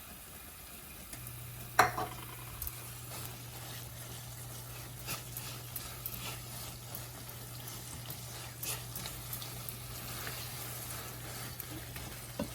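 A spatula stirring and scraping butternut squash halwa in a pan as it cooks in ghee with jaggery, with a faint sizzle. A sharp, ringing knock of the utensil on the pan comes about two seconds in, with lighter knocks after, and a low steady hum starts about a second in.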